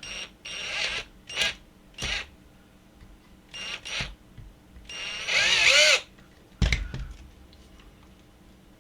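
Small power drill boring out a hole in a coffee grinder's plastic base, run in short bursts whose pitch rises and falls, the longest about five seconds in. A single knock follows near seven seconds.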